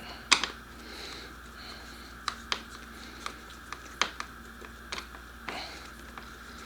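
Irregular light clicks and taps, about ten in all, from tools and plastic and metal parts being handled, over a faint steady hum.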